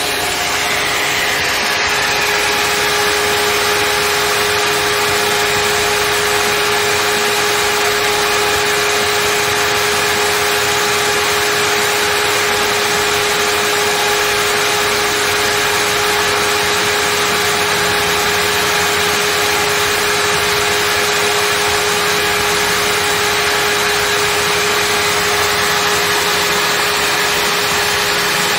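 Table saw motor running steadily at full speed with a thick paper disc in place of the blade, a steady whine over loud hiss, as the spinning paper rubs against a strip of MDF fed into it. The paper disc barely cuts the board.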